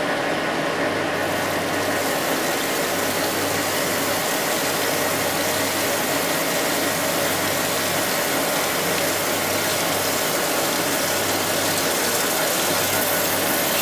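AMC 1500H crankshaft grinder taking the first cut on a main journal of a 305 Chevrolet crankshaft: the abrasive wheel grinding the steel journal under a coolant flood, a steady hiss over the machine's low hum. The hiss grows brighter about a second and a half in as the wheel comes fully into the cut.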